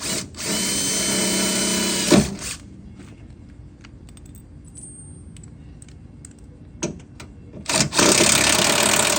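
A handheld power tool running on car-body sheet metal in two steady bursts of about two seconds each, with a sharp clack as the first burst stops.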